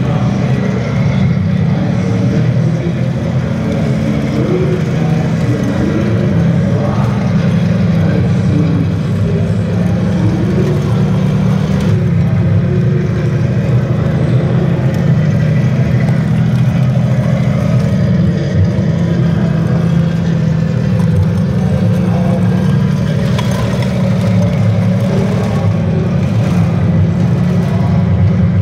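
Large-scale radio-controlled King Tiger (Tiger II) model tank running and driving, a steady low engine rumble.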